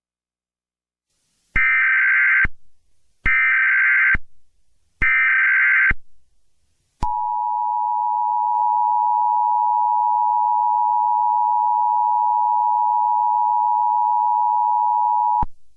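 Emergency Alert System tones: three short, buzzy data bursts of the SAME header, each just under a second long, then the steady two-tone attention signal held for about eight seconds before it cuts off.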